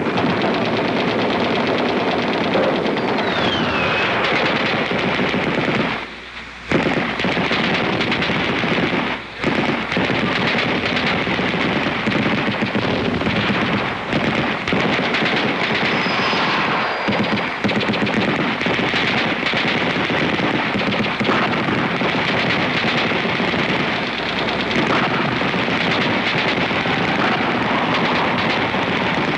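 Sustained rapid machine-gun fire, a dense unbroken crackle of shots as a battle sound effect, with a short falling whistle about three seconds in and two brief breaks about six and nine seconds in.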